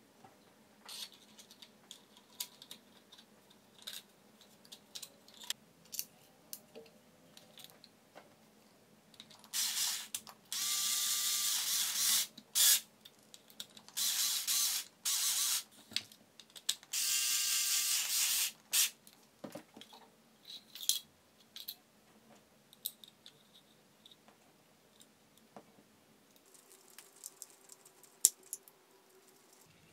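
A cordless electric screwdriver driving screws into a 3D-printed plastic frame in three runs of about two seconds each, about ten, fourteen and seventeen seconds in. Before and after, light clicks and taps of plastic parts being handled and fitted together, with one sharper click near the end.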